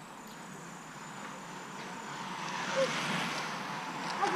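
Thin steady high insect buzz that stops about halfway through. Then a rising rush of outdoor noise with a brief shout as the sprinting bunch of racing cyclists approaches the finish, spectators beginning to cheer.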